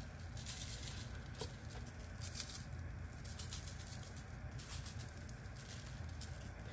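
Seasoned salt shaken from a shaker over raw chicken wings in an aluminum pan: faint, short rattling bursts of granules, repeated several times.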